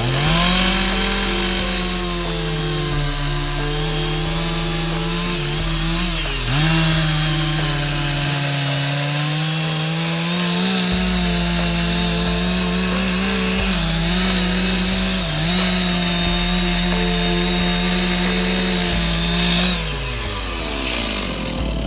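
Chainsaw cutting through jackfruit wood at high revs, its pitch sagging and recovering as the chain bites, with two sharp dips, then winding down near the end.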